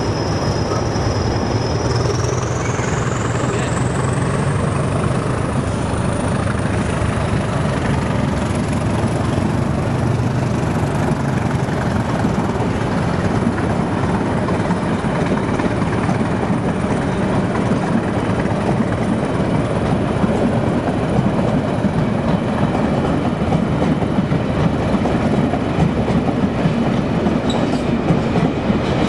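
Train running along the track: a steady rumble of wheels on rail with clickety-clack over the rail joints. A thin high whine rises in pitch over the first few seconds, then levels off.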